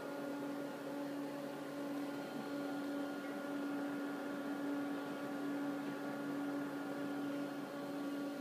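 Steady hum of running bench electronic test equipment, a constant drone with several fainter steady tones over a soft hiss.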